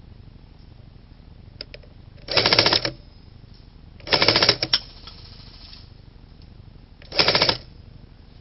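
Three short full-auto bursts from an airsoft electric gun, each about half a second long, a fast even rattle of shots.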